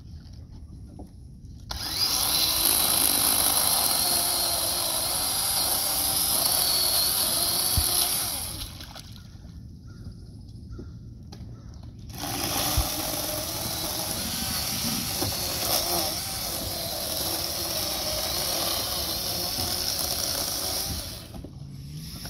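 Chainsaw cutting up deadfall in two long runs, about six seconds and then about nine seconds, with a short pause between. Its pitch wavers as the chain bites into the wood.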